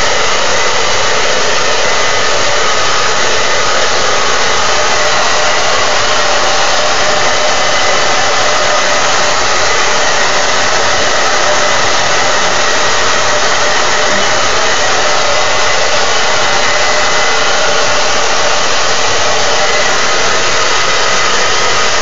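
Handheld blow dryer running steadily, a loud even whoosh of air.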